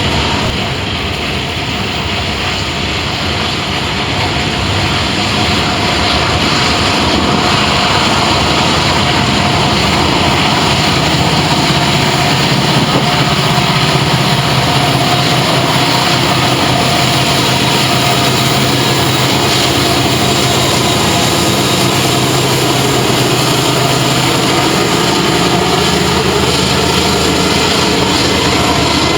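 Diesel freight locomotives running past with a steady engine drone over a dense rolling noise, swelling about five seconds in and then holding loud.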